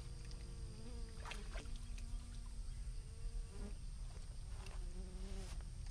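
Flying insect buzzing close by, a wavering hum that comes and goes several times, over a low rumble with a few faint clicks.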